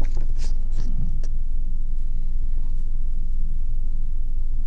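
A steady low rumble, with a few soft paper rustles in the first second or so as a user manual is handled.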